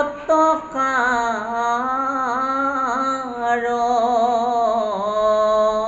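A man singing a slow devotional sloka in Bhagavat-reading style. It is one long drawn-out phrase whose pitch wavers and glides, briefly broken just after the start.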